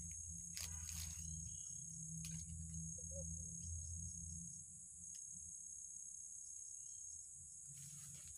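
Steady, high-pitched drone of insects, over a low rumble, with a few soft clicks and rustles, one of them near the end.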